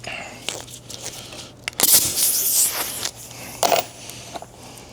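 Irregular clatter and scraping of tools and metal parts being handled, with a louder burst about two seconds in and a shorter one near the end, over a steady low hum.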